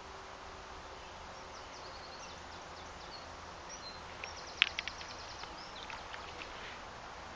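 A small bird singing in quick, high, repeated trills over steady outdoor background noise, with a sharp click about halfway through as the loudest sound, followed by a few fainter clicks.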